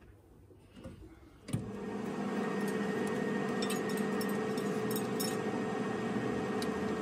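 A steady machine hum with a constant drone, cutting in sharply about one and a half seconds in after near quiet, with a few faint ticks over it.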